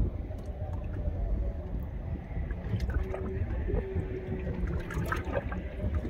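Water gurgling and lapping against a boat's hull, over a steady low rumble.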